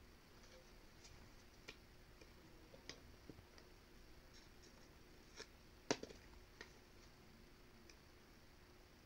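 Near silence with a few faint, scattered clicks and taps of scissors and paper being handled, the sharpest click about six seconds in.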